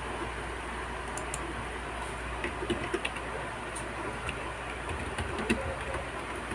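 A few scattered sharp clicks of a Chromebook's keyboard and touchpad as the page is scrolled and a short comment is typed, over a steady low hum and hiss.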